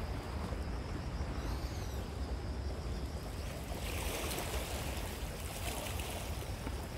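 Steady outdoor wind rumble on the microphone with the wash of the sea on a rocky shore, swelling briefly about four seconds in.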